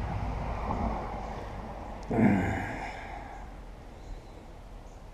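A short breathy sigh-like exhale, falling in pitch, about two seconds in, over a low rumble.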